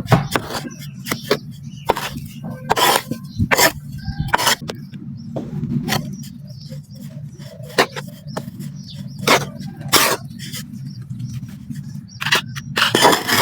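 Clumps of black sand being crushed and crumbled, a quick irregular series of sharp gritty crunches and crackles over a steady low rumble in the background.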